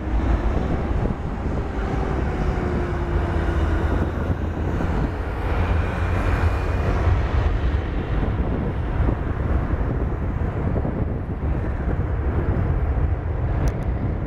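Jet airliner engines rumbling during a landing, with a whine that slides slowly down in pitch over the first few seconds.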